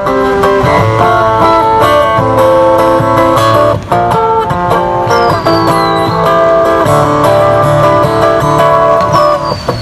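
Fingerstyle acoustic guitar playing, a plucked melody over a steady bass line.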